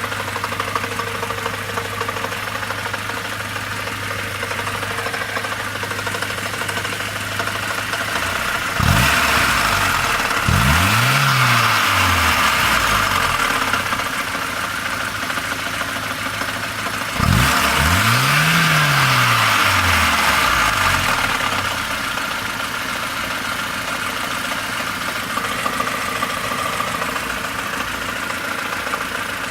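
Car engine idling with a knock, revved twice: the pitch rises and falls back about nine seconds in and again around seventeen seconds in, louder during each rev.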